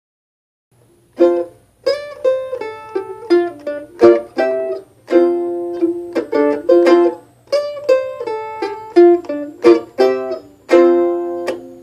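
Solo mandolin, picked. It plays a melodic line of ringing single notes and double stops that starts about a second in, each note with a sharp attack.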